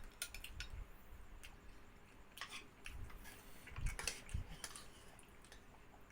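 Eating sounds: scattered light clicks of a spoon against a bowl, with chewing. The sounds are loudest about four seconds in.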